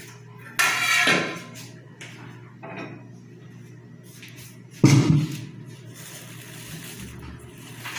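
Kitchen handling sounds: a clatter just after the start and a loud thump about five seconds in, then faint rustling of the plastic sheet as a hand pulls it back off the pot.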